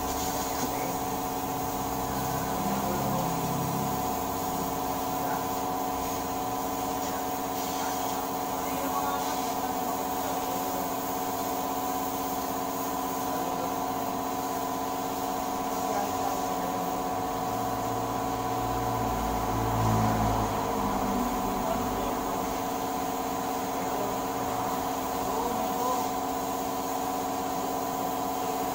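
A steady mechanical hum made of several fixed tones that does not change, with a short low rumble about twenty seconds in.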